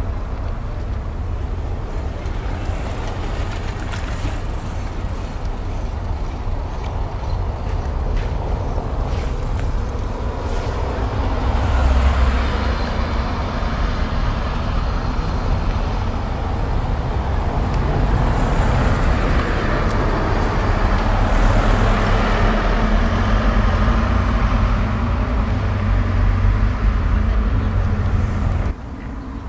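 Outdoor traffic rumble: a steady low drone of road vehicles that swells as vehicles pass about twelve seconds in and again around twenty seconds in, then drops suddenly near the end.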